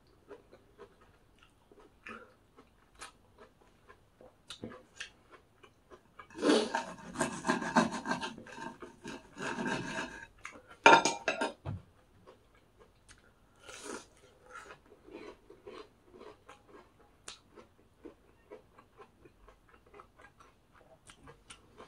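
Table knife sawing back and forth through a crispy breaded pork cutlet in a run of rasping strokes lasting about four seconds, a third of the way in. A single sharp knock follows, with scattered small clicks elsewhere.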